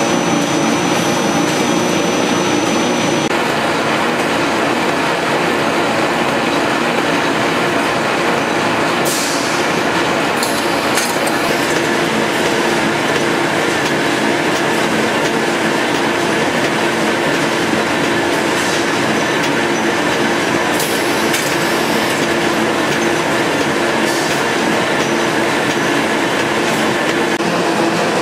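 Corrugated-box flexo folder gluer running in production: a loud, steady mechanical din, with a few sharp clacks scattered through it.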